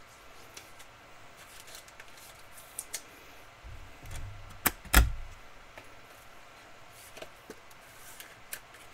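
Trading card being fitted into a clear plastic card holder by hand: scattered small clicks and rustles, with one sharp click and thump about five seconds in.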